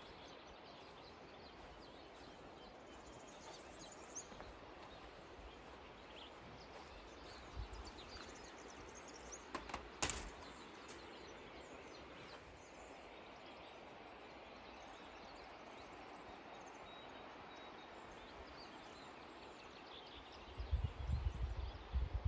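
Rural valley ambience: a steady faint hiss with scattered faint bird chirps. There is a sharp click about halfway through and low rumbling thumps near the end.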